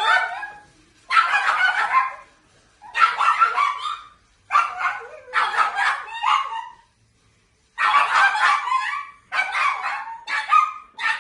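Pugs howling in a run of about eight short, ragged howls, each about a second long, with brief gaps between them.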